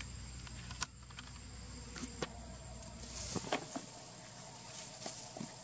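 Outdoor ambience: a thin, steady high tone and a faint hiss that swells about halfway through, with scattered small ticks and rustles.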